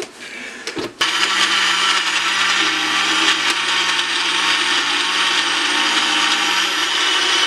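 Countertop blender switched on about a second in and running steadily, whirling a jar of liquid drink mixture.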